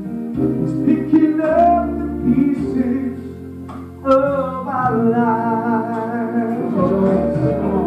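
Two men singing a gospel song into microphones over instrumental accompaniment, a new, stronger sung phrase coming in about four seconds in; the sound of a large hall.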